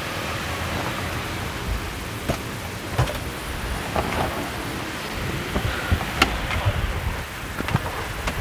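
Steady rushing noise with a low rumble, like wind or handling on the microphone, with a few sharp clicks and knocks as a car's front door is opened and the cabin is handled.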